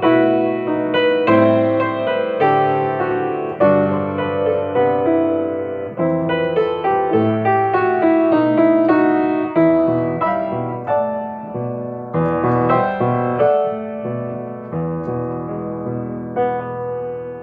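Solo piano playing an unaccompanied passage of chords and melody notes, each struck note fading away, growing gradually softer over the last few seconds.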